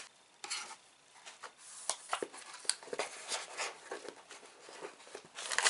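A cardboard snack box being handled and rummaged through: scattered rustling and light knocks, with a louder rustle near the end.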